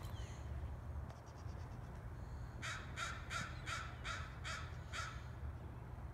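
A bird calls seven harsh, crow-like notes in a quick, even series, about three a second, starting near the middle. A steady low rumble runs underneath.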